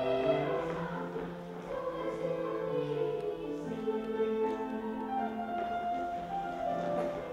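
Children's choir singing long held notes in several parts, with piano accompaniment.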